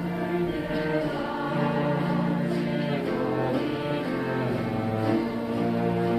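Chromaharp ensemble strumming a slow melody, with the group singing along together.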